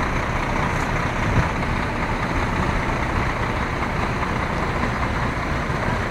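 Diesel engines of parked lorries idling together, a steady, even running sound with most of its weight in the low end.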